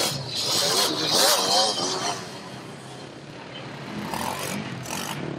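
Racing quad (ATV) engines revving unevenly as the machines struggle for grip in deep mud, the pitch rising and falling. Loudest about a second in, then quieter.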